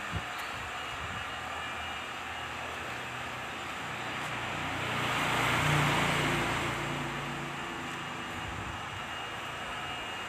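Steady blowing whir of an electric heat gun used to shrink window-tint film onto car glass. A louder engine-like sound swells up and fades away around the middle, like a vehicle passing.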